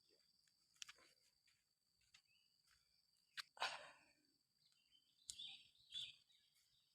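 Near silence in the open: a faint steady high-pitched insect drone, with a few soft clicks and two brief rustles, one about halfway through and another near the end.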